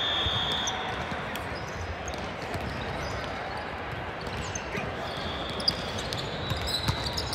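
Balls bouncing and thudding in a sports hall, against a steady wash of hall noise. A high steady tone sounds briefly at the start and again for about two seconds after five seconds in, and a sharp smack stands out near six seconds.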